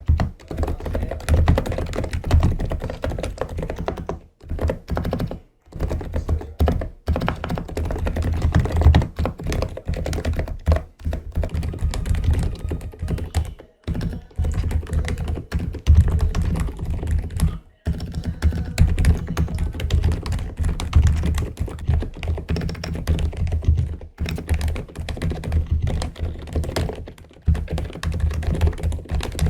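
Fast, continuous typing on a Freeflow Akon AK74 low-noise keyboard, with rapid deep-toned keystrokes and a few short pauses.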